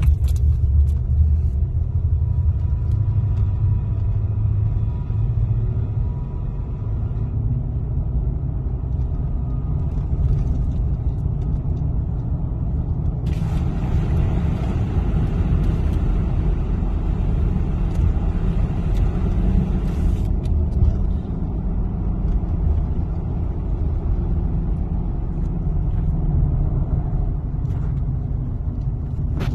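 Steady low road and engine rumble heard from inside a moving vehicle's cabin. About halfway through, a band of hiss cuts in abruptly and stops about seven seconds later.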